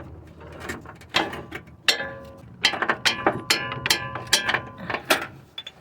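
Hand tools working a bolt on a steering shaft joint: irregular metallic clicks and clinks, some with a short ringing, typical of a ratchet and wrench on steel.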